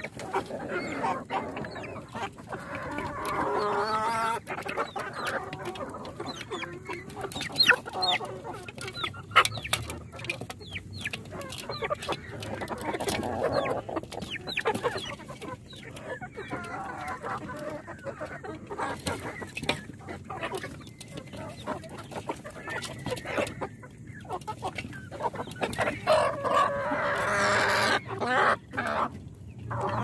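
A flock of Kadaknath chickens clucking and calling continuously, with a few longer drawn-out calls about three seconds in, midway and near the end. Scattered sharp clicks run through it.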